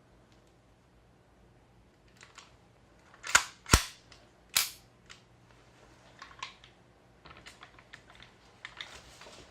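GHK OTs-14 gas blowback airsoft rifle firing three sharp shots on green gas, all within about a second and a half, a little over three seconds in. Fainter clicks come before and after the shots.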